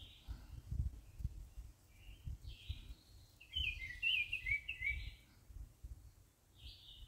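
Wild songbirds calling: scattered short chirps, then a quick run of warbling notes from about three and a half to five seconds in. Dull low thumps on the microphone sound underneath.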